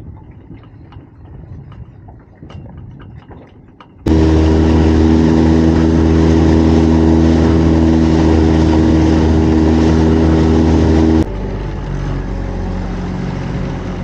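Fishing boat's engine running at speed, a loud steady drone of several held tones that starts suddenly about four seconds in and cuts off abruptly after about seven seconds. Before it comes a quieter rumble with a few knocks; after it, a quieter, lower engine hum.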